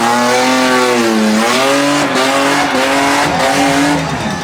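Off-road race car engine held at high revs, its pitch dipping briefly about a second and a half in, then climbing back and holding before dropping away near the end.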